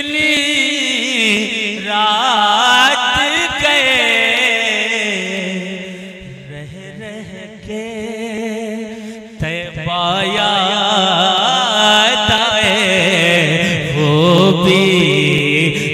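Man singing a devotional chant through a stage PA via a Dynatone DT-666 dynamic microphone. The long held notes waver and turn in ornamented melodic lines, soften in the middle, and a new loud phrase starts about nine seconds in.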